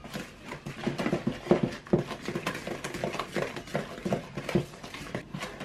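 Wooden spoon stirring thick brownie batter in a mixing bowl, folding in the last of the flour: quick, irregular strokes and scrapes against the bowl, about three a second.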